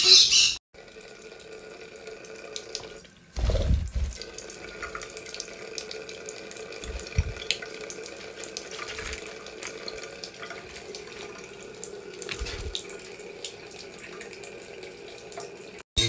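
Tap running steadily into a bathroom sink, with a low thump about three and a half seconds in.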